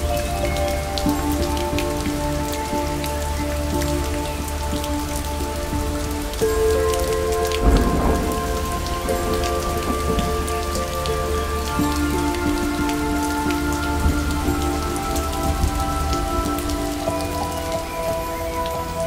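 Steady rain with a patter of fine drops, mixed with soft background music of long held notes that change every few seconds. A low rumble swells up briefly about eight seconds in.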